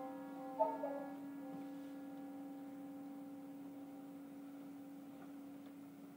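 Brass band playing softly: a held chord with a brief accent about half a second in, after which the upper parts drop out and a single low note is sustained, fading away near the end.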